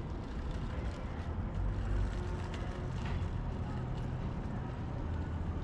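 City street ambience: a steady low rumble, with a few faint clicks here and there.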